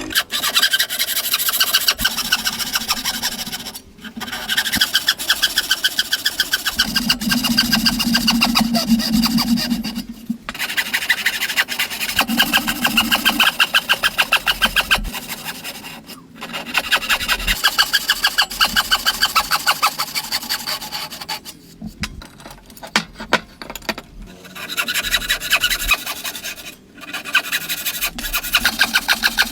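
Hand tool working wood in fast back-and-forth strokes, such as a rasp or small saw, loud and rhythmic. It comes in runs of several seconds with short pauses between them.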